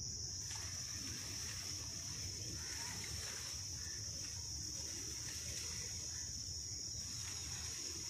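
Insects chirring in a steady, high-pitched drone with no pauses, over faint low background noise.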